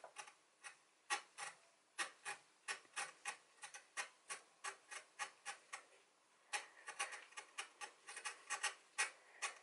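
Full-length hacksaw cutting back and forth in short strokes across the head of a small M3 cap bolt, about three strokes a second with a brief pause just after the middle. The blade is deepening a screwdriver slot in a bolt whose Allen head is rounded out and seized.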